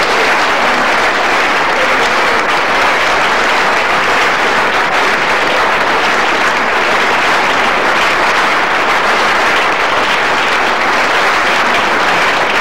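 Audience applauding, a steady, sustained round of clapping.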